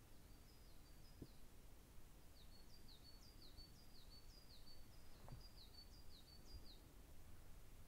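Faint high chirps of a small bird: a couple of short notes, then a quick run of about three a second that stops near the end, over a low outdoor rumble. There are two soft thumps along the way.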